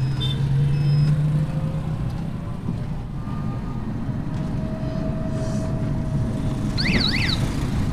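Riding inside an electric rickshaw (toto): steady rumble and rattle of the moving vehicle on the road, with a low hum that fades out in the first couple of seconds. About seven seconds in, a short warbling electronic horn sounds.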